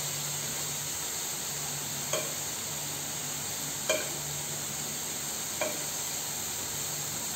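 Marinated chicken tikka pieces sizzling steadily in a non-stick frying pan. A spatula clicks against the pan three times as the pieces are turned over.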